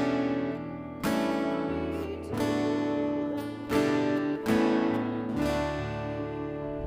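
Music: an acoustic guitar playing slow strummed chords, each left to ring, about five strums spaced a second or so apart.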